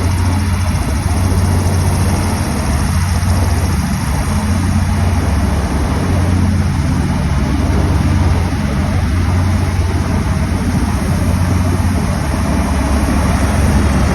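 Vehicle engine running steadily, a loud, even low hum with no change in speed.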